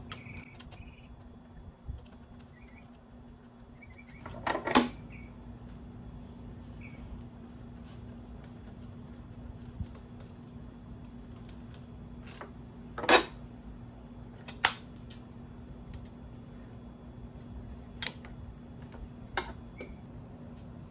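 Hand tools and small metal parts clinking while the front brake-line distribution manifold is unbolted: a scattering of sharp clicks and clanks, the loudest about five and thirteen seconds in, over a steady low hum.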